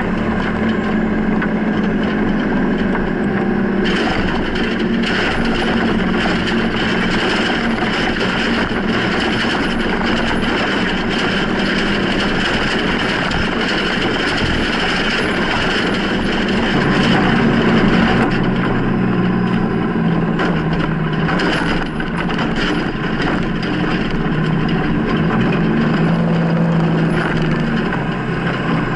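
Freightliner plow truck's diesel engine running under load, its pitch stepping up and down as the speed changes, over a steady rushing noise from the plow blade moving snow.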